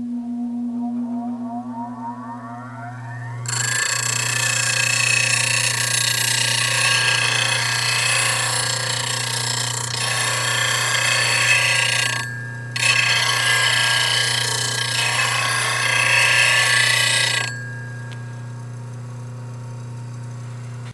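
Bench grinder spinning up with a rising whine over a steady electrical hum. About three and a half seconds in, a steel lathe gouge is pressed to the 180-grit wheel and a loud grinding hiss runs for about fourteen seconds, sharpening its bevel, with one brief break about twelve seconds in. After the hiss stops, the grinder runs on alone.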